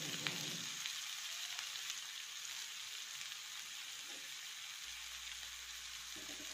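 Chopped bitter gourd frying in oil in a wok: a faint steady sizzle with a few small pops.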